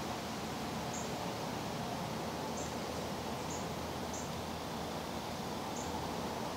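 Woodland ambience: a steady background hiss with about six short, high chip notes, irregularly spaced a second or so apart.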